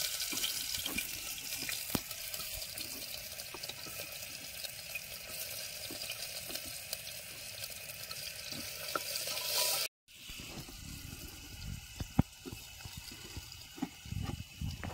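Chopped onions sizzling as they fry in hot oil, an even hiss. It breaks off briefly about ten seconds in, then goes on more quietly with a few sharp clicks.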